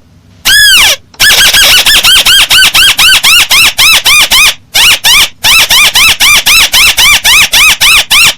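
Paddy-field crake (tikusan) calling loudly: one longer arched note, then a fast run of short notes that each rise and fall in pitch, about five a second, with a brief break about halfway through.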